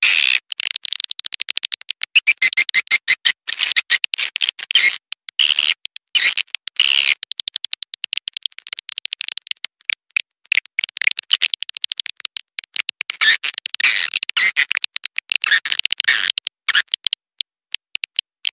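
Recorded swiftlet call used as a lure: rapid, high twittering and chirping of edible-nest swiftlets, dense and broken by many short gaps.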